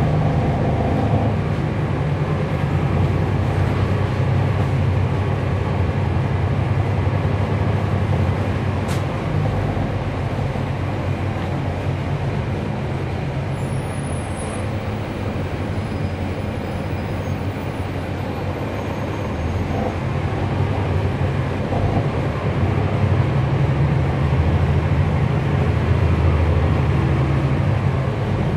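Cummins ISL9 diesel engine of a NABI transit bus with a ZF Ecolife six-speed automatic, heard from inside the moving bus. The engine runs under load, eases off about a third of the way in, and pulls harder again toward the end.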